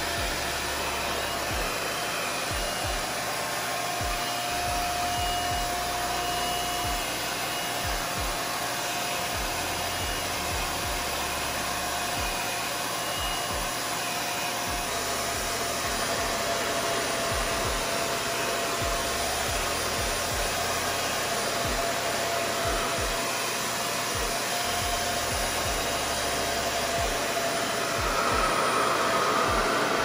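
RevAir reverse hair dryer running steadily, its fan drawing air and hair through the drying tube as a continuous rushing noise with a faint whine in it. It gets a little louder near the end.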